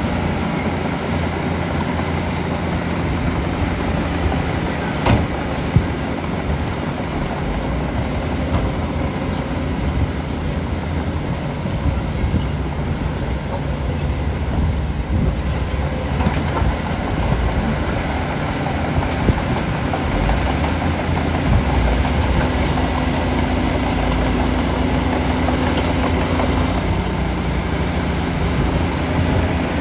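Shantui DH17 bulldozer's diesel engine running steadily, with a couple of short sharp knocks about five seconds in.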